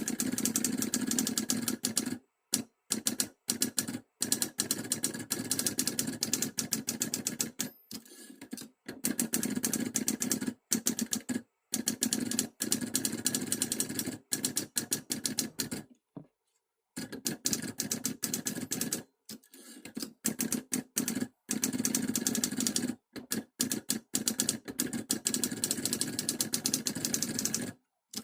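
A typewriter's carriage at work: long runs of rapid, dense clacking, broken by several short pauses, and stopping abruptly near the end.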